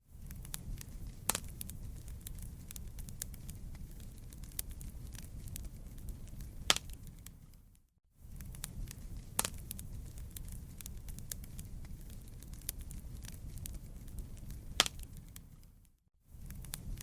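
Wood fire crackling: a steady low rumble of burning with scattered sharp pops, the loudest about a second in, at about seven seconds and about fifteen seconds in. The sound fades briefly to silence about halfway through and again near the end.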